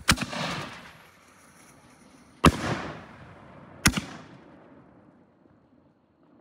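5-inch canister aerial shells (Nishiki willow series) going off: three sharp bangs, each trailing off in an echo, at the very start, about two and a half seconds in and about four seconds in.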